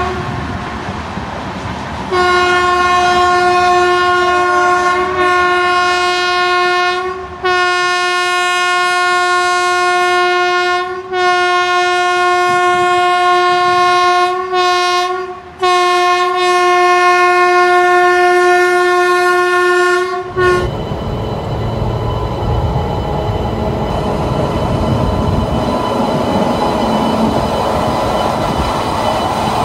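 A WAP-7 electric locomotive's horn sounds one steady note: a short toot, then nearly continuous long blasts broken by a few brief gaps, cutting off about twenty seconds in. Then comes the loud rumble and clickety-clack of the locomotive and train running past on the track.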